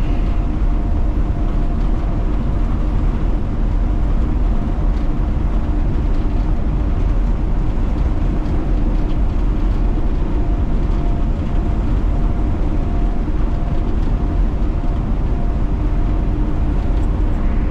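Semi truck driving, heard from inside the cab: a steady low rumble of engine and road noise with a faint steady drone over it.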